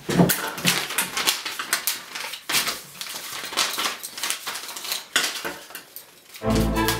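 Paper and scissors being handled on a glass-topped desk: a quick, irregular run of clicks, taps and rustles. Music comes in near the end.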